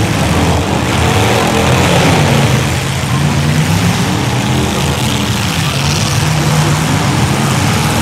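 Several demolition derby cars' engines running loudly, their pitch rising and falling as they are revved unevenly.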